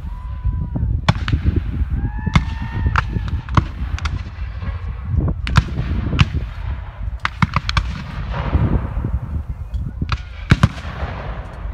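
Scattered black-powder musket shots, blank charges fired by Civil War reenactor infantry lines: sharp single cracks at irregular intervals, with a quick run of several shots a little past the middle.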